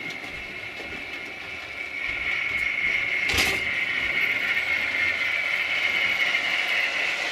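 Model railway A4 locomotive hauling a rake of six or seven coaches round the layout: a steady whirring of motor and wheels on the track. It grows louder from about two seconds in as the train draws nearer, with a single sharp click partway through.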